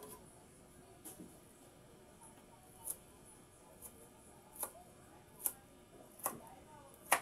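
Knife cutting on a board: sharp, separate clicks roughly once a second, the strongest near the end.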